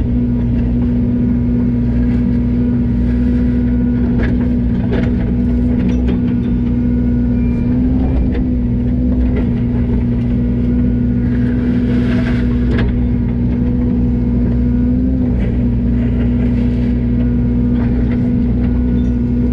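Yanmar ViO80 excavator running steadily at working speed, a constant pitched drone with a pitch that dips briefly a couple of times. Scattered short clanks of the machine at work sound over it.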